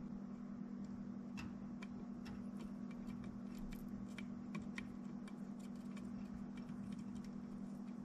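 Faint, irregular tiny clicks and crackles as a soldering iron melts solder and flux in a butt connector while a wire is pushed in, over a steady low hum.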